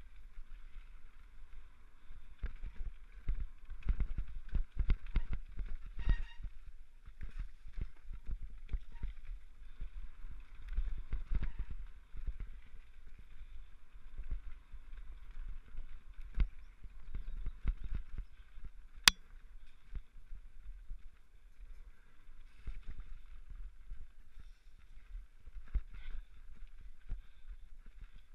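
Mountain bike being ridden fast down a rough forest trail, picked up by a helmet camera: irregular knocks, rattles and rumble from the bike and the trail over a steady hiss, busiest in the first half, with one sharp click about two thirds of the way through.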